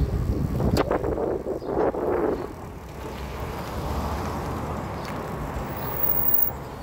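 Wind rumbling on the microphone and road noise from riding a hybrid bicycle in traffic, with a louder rushing swell over the first couple of seconds and a sharp click just under a second in.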